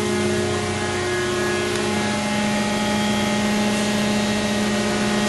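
Hybrid CNC tube bender running: a steady machine hum with several held tones, one of which drops out about two seconds in.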